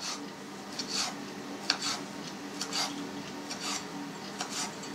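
Kitchen knife dicing pork back fat into small cubes on a plastic cutting board: a run of short, crisp chopping strokes, about one or two a second.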